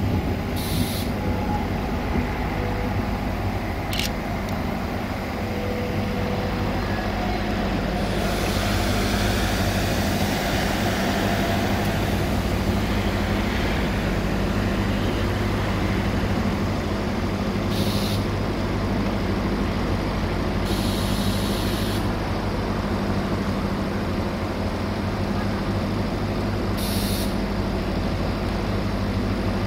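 Diesel railcar running, a steady engine drone heard from aboard, with several short hisses, one near the start and three more in the second half, and a couple of sharp clicks early on.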